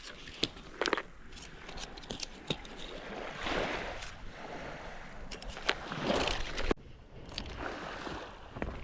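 Small waves washing against the shore, surging every two to three seconds, with wind on the microphone and a few scattered clicks.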